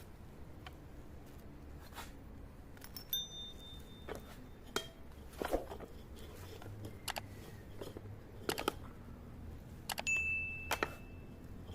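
Small metal parts being handled and set down on a hard surface: irregular clinks and taps, two of them ringing briefly with a high metallic tone.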